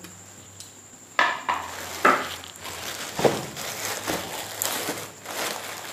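Clear plastic bag crinkling and rustling as hands grab it and pull at it, a run of uneven crackles starting about a second in.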